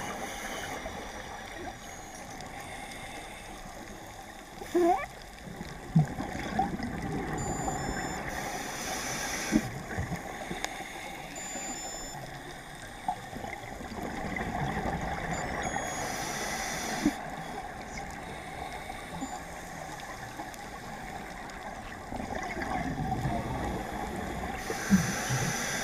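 Underwater sound on a scuba dive: a diver's exhaled bubbles burbling from the regulator in bursts about every seven to eight seconds, over a steady underwater hiss, with a few small clicks.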